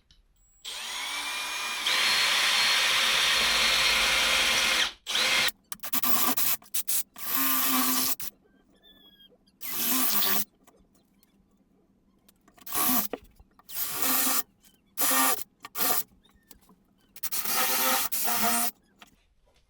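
Milwaukee drill with a 7mm masonry bit drilling holes into a wall for wall plugs. The motor whine rises as it spins up, then runs for about four seconds, followed by a string of shorter bursts with pauses between them.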